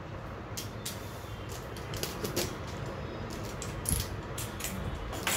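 Large cardboard monitor box being handled and tipped on a desk: scattered cardboard scrapes, creaks and light knocks, with a sharper knock about four seconds in.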